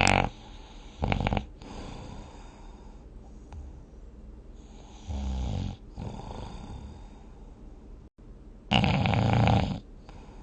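A person snoring in a doze, in separate rough snores: one at the very start, a short one about a second in, a quieter, deeper one around five seconds in, and the loudest, longest one near the end.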